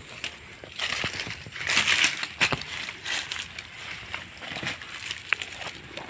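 Dry leaf litter and twigs crunching and rustling underfoot and against the body while walking through brush, loudest about two seconds in.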